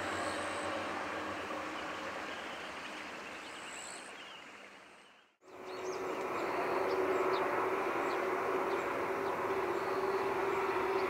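A train running, its rail and running noise a steady rumble that fades out about halfway. It then fades back in with a steady hum and light bird chirps.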